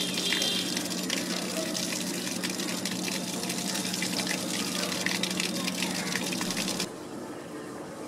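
Steady rushing noise like running water, under a low steady hum; it cuts off suddenly about seven seconds in.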